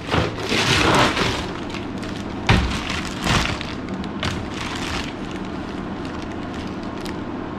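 Plastic bags full of ice cubes being handled and set on a digital kitchen scale: crinkling plastic and shifting ice with a few thuds in the first half, then a steady background hum.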